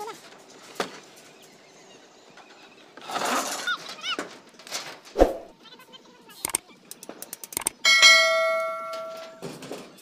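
Sound effect of a subscribe-button overlay: a few sharp clicks, then, about eight seconds in, a bright bell ding that rings out and fades over about a second and a half.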